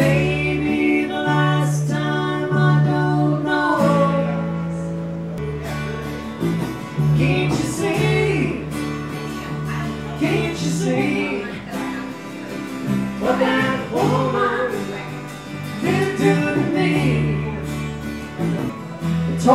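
A live acoustic band plays: two strummed acoustic guitars over a bass line of held notes that change every second or two, with a sung voice coming in at times.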